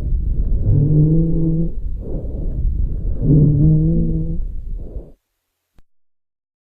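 Stethoscope recording of breath sounds: low-pitched, musical tones heard with each breath, repeating about every two and a half seconds. The recording cuts off abruptly about five seconds in.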